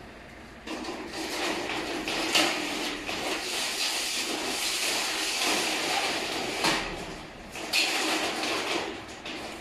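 Corrugated steel roll-up door curtain being pushed by hand along its side guide rail, the sheet metal scraping and rattling in the channel, with a few sharp metallic knocks.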